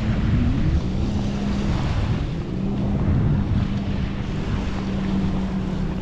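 An engine droning steadily at one pitch, with wind buffeting the microphone.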